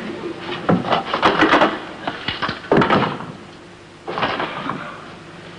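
Wooden frame being handled and pushed against a wall: irregular knocks, bumps and scrapes of wood, with a louder knock a little before halfway.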